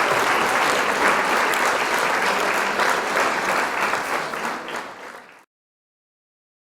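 Crowd applauding, a dense steady clapping that fades away and stops about five and a half seconds in.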